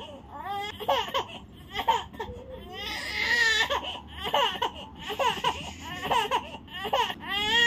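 Infant fussing: a string of short, high whimpering cries that ends in a longer rising cry near the end, the irritable crying of a baby before sleep.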